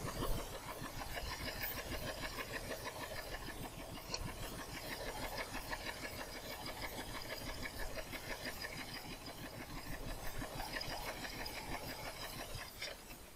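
Small boat engine running steadily with a fast, even pulse, stopping suddenly near the end.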